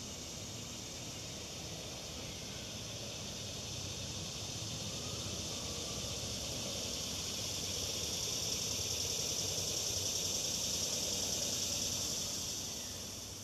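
A cicada's high, steady buzzing drone swells louder in the middle and fades near the end, over a low background rumble.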